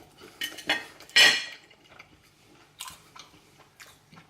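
A person chewing a cheeseburger close to the microphone, with two short wet mouth noises in the first second and a half, the second the loudest, then soft scattered clicks.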